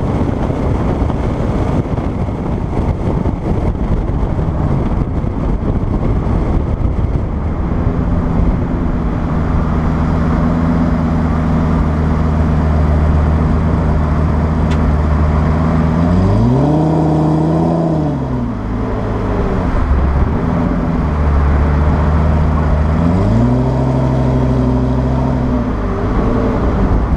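Wind and road noise at speed, then the Lamborghini Gallardo Superleggera's V10 idling. It is revved twice: a short rise and fall a little past halfway, then a longer rev held for a few seconds near the end before it drops back to idle.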